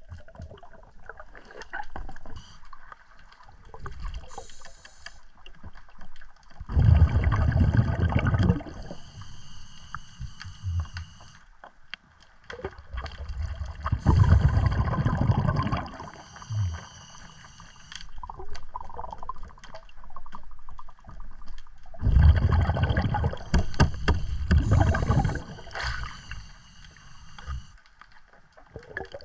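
Pneumatic air tool run underwater in three bursts of a couple of seconds each, its air bubbling through the water, with a steady high whine during the runs.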